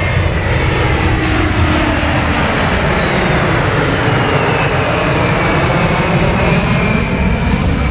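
Jet noise from a four-turbofan KC-135 tanker and two F-16 fighters flying over in formation: a steady, loud rush with a high whine that slowly falls in pitch as they pass.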